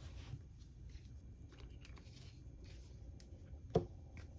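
Quiet room tone with a faint low hum and a few faint scattered ticks, then one brief sharp click near the end.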